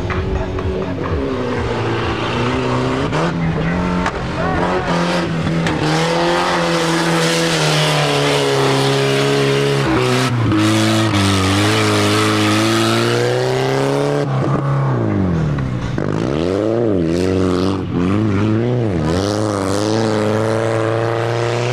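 Off-road racing vehicle engine running hard, its pitch climbing and falling with the throttle. Several quick revs up and down come in the last third.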